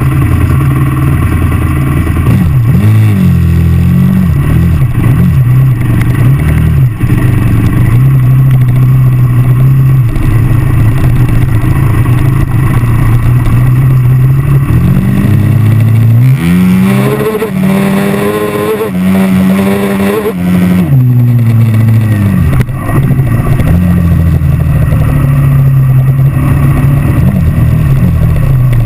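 Dirt bike engine running under way, its pitch rising and falling with the throttle. It revs up steeply around the middle, holds a high note for a few seconds, then drops back.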